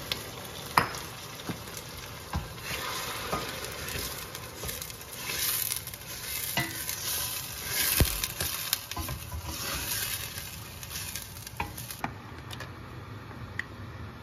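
Onion and garlic paste frying in hot oil in a pan while it is stirred, with a spatula clicking and scraping against the pan now and then. The sizzle swells twice in the middle and eases off over the last couple of seconds.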